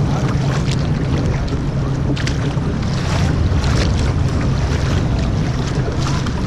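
Steady rush and rumble of water from a pump outflow beside a kayak, with wind buffeting the microphone and several short splashes.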